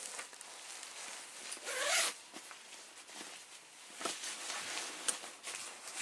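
Rustling and scraping as objects are handled off camera, with one long zip-like rasp about two seconds in and a few light knocks later.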